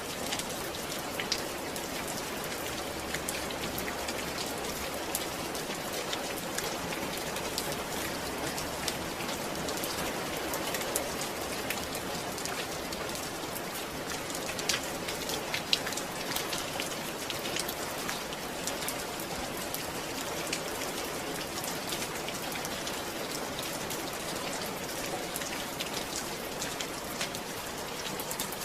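Steady rain falling, with scattered sharper drop impacts ticking through it.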